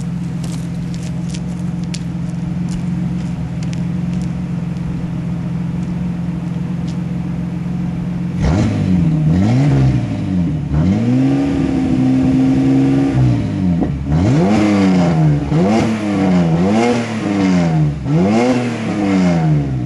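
A Megasquirt fuel-injected GM 3.1L V6 in a 1973 MGB GT, heard from some distance, idling steadily. About eight seconds in it is revved up and down, held up once for a second or so, then blipped repeatedly in quick succession.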